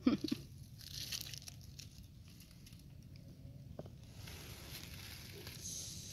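Faint rustling and crinkling of dry fallen leaves, with a few small clicks; the rustling grows louder over the last couple of seconds.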